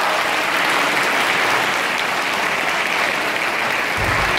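Audience applauding steadily, a dense even clapping, with a low thump near the end.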